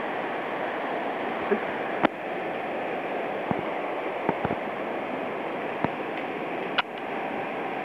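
Rushing water of a mountain stream running high and fast after typhoon flooding, a steady rush, with a handful of short sharp clicks or knocks scattered through it.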